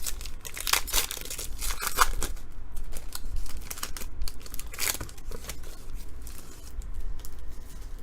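A trading card pack's wrapper being torn open and crinkled, with a cluster of tearing rips in the first two seconds and another rip about five seconds in, then softer rustling of wrapper and cards.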